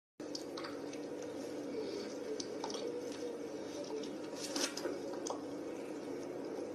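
Wet kissing sounds: a few scattered lip smacks over a steady background hum.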